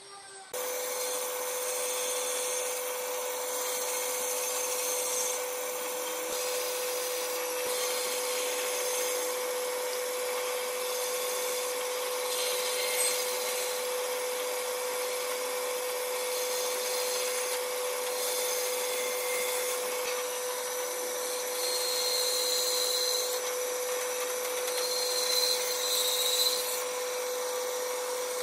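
A power tool starts about half a second in and runs steadily against wood, its motor holding one even hum under a rasping noise.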